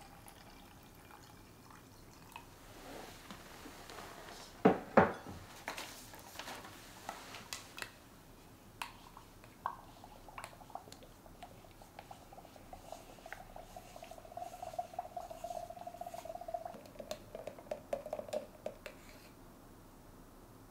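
Water poured from a glass pitcher into a glass jar of powdered milk, with a pair of knocks about five seconds in, then a spoon stirring the thick milk slurry, clicking repeatedly against the glass jar. A faint steady tone sits under the later stirring.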